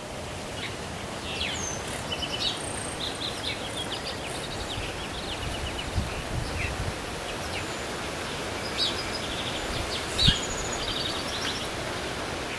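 Outdoor ambience: several small birds chirping and giving fast trills of rapid repeated notes over a steady background hiss. A couple of low thumps come through, one about halfway and a louder one near the end.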